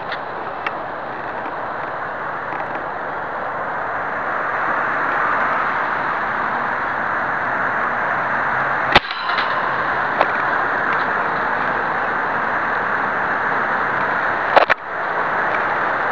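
Daisy Powerline 880 multi-pump air rifle firing twice, one sharp crack about nine seconds in and another near the end, over a steady background hiss.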